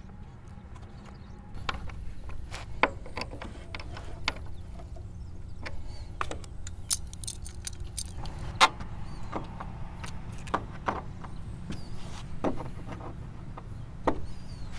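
Scattered clicks, taps and knocks of hands handling a model airplane as its wing is fitted: servo leads being plugged in and the wing seated on the fuselage. A steady low rumble runs underneath.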